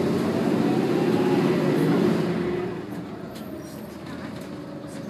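Mercedes M447hG compressed-natural-gas engine of a Mercedes O405 bus pulling under load, heard from inside the passenger cabin, with a whine that rises and then falls. About halfway through, the engine note drops away as the bus eases off, leaving quieter road noise and small rattles.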